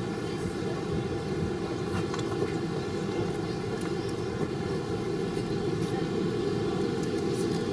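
Jet airliner engine noise heard from inside the cabin: a steady low rumble with a faint set of steady higher tones over it.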